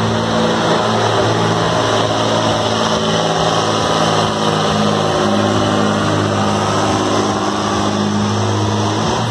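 Scania truck's diesel engine running steadily at a constant pitch under full load as it drags a truck-pulling sled, ending in a full pull.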